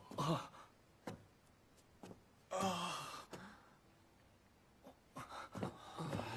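Men's short wordless vocal sounds with a few faint clicks. The clearest is a breathy vocal sound about two and a half seconds in, lasting under a second.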